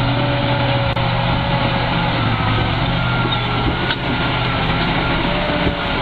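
Ural logging truck's engine running steadily with a low drone.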